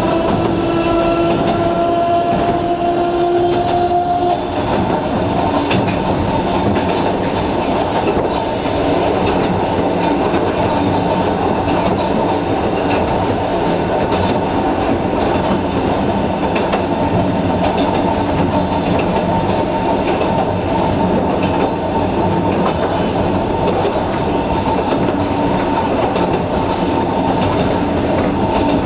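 Electric train with nose-suspended traction motors, heard from inside the cab: the motors give a whine that rises slowly in pitch and cuts off about four seconds in, as the power is shut off. The train then runs on with a steady rumble and the clickety-clack of the wheels over the rails.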